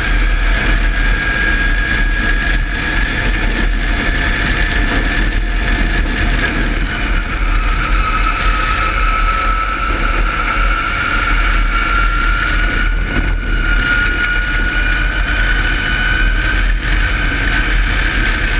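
Palatov DP1e electric race car at speed, heard from the cockpit: the electric motor's high whine sags in pitch about halfway through as the car slows, then climbs again as it accelerates. Under it run loud wind buffeting and road rumble.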